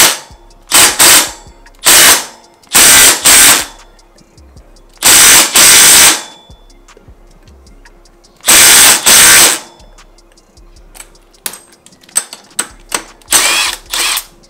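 Cordless impact driver hammering the BMX crank spindle bolt in short bursts of about a second or less, with pauses between, and lighter, quicker bursts near the end. The bolt is being tightened to pull the crank spindle over and centre it in the bottom bracket.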